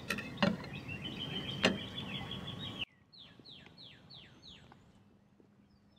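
Songbirds singing, with a few sharp clicks of a knife and fork against a plate in the first three seconds. About three seconds in, a bird gives a quick run of five falling whistles, followed by fainter chirps.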